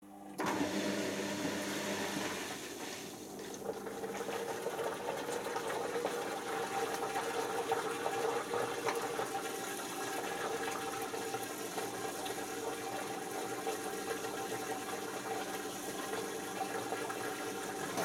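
Pro Action A105QW front-loading washing machine at the start of its final spin: a steady hum of several tones from the motor and drum, with a rushing water sound, growing a little louder after a few seconds.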